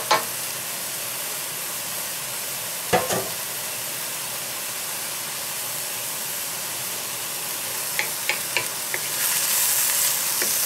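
Vegetables and sliced almonds sizzling in a hot carbon steel wok as they are stir-fried with a bamboo spatula. The spatula knocks against the wok once about three seconds in and clicks against it a few times near the end, when the sizzle grows louder.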